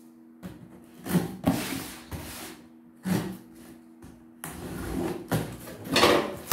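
Cardboard box handled on a wooden table with a few short knocks and scrapes, then scissors slitting the packing tape: a continuous scraping rasp from about halfway through, loudest near the end.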